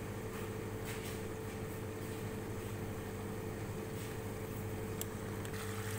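Steady mechanical hum of a running motor, with a couple of faint clicks.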